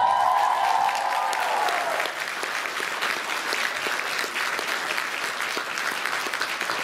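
Audience applauding. The song's last held note fades out over the first two seconds.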